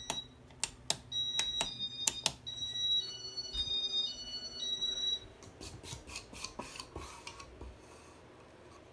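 Casablanca W11 wall control beeping through its demo mode: a run of short high electronic tones stepping up and down in pitch, mixed with sharp clicks. The beeps stop about five seconds in, and a few more clicks follow.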